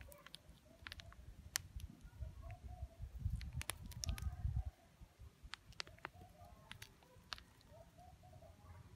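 Footsteps in sandals on stony, gravelly ground, with scattered sharp clicks of pebbles. A low rumble on the microphone comes in about three seconds in and stops just before five seconds.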